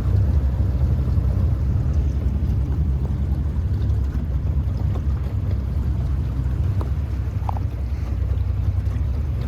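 Boat's outboard motor running steadily, a constant low drone, as the boat travels along the river.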